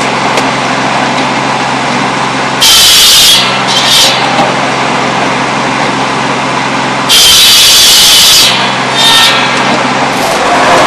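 Buzz saw (cordwood saw) cutting pole wood into firewood lengths: a steady running hum with repeated loud, hissing passes of the circular blade through the wood, two long cuts about 3 s and 7 s in and several shorter ones.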